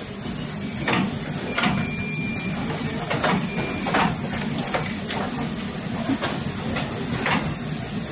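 Automatic laser marking machine running: a steady low machine hum with short, sharp hissing ticks at about one a second, and a thin high whine that sounds twice, briefly, near the first and middle seconds.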